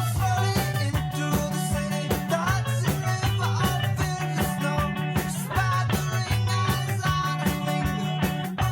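Background music: an upbeat rock track with guitar, a steady beat and a bass line, and a melody that may be sung.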